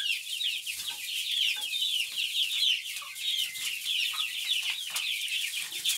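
A brood of month-old chicks peeping continuously: many short, high, downward-sliding peeps overlapping one another.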